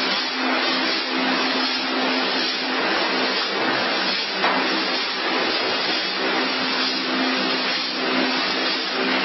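1500W LED fog machine blasting a continuous jet of fog: a steady rushing hiss with a low hum underneath.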